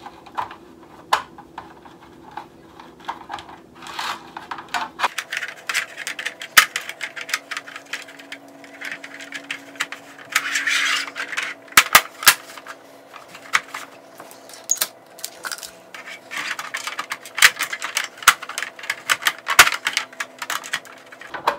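Plastic filter covers being handled and fitted onto the rim of an 18-inch ring light: many sharp clicks, taps and light clatters with short rustles between them.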